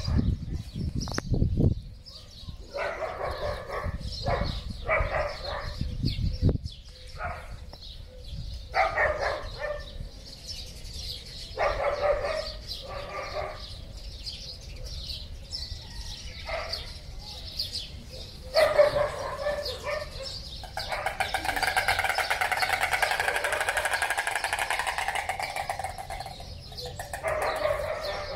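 Repeated short animal calls, dog-like barks and yelps, with a longer unbroken call of rapid pulses about three quarters of the way through.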